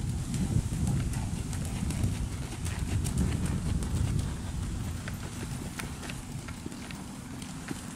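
Hoofbeats of several horses trotting on soft sand arena footing, a quick run of short, dull strikes. A low rumble under them is loudest at first and fades about halfway through.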